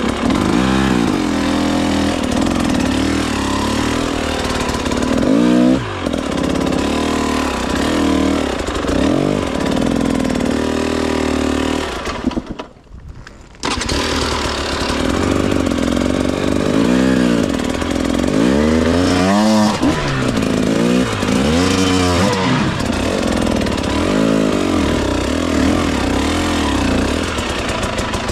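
Two-stroke KTM 300 EXC TBI enduro engine being ridden, revving up and down repeatedly so its pitch keeps rising and falling. The sound drops away for about a second near the middle.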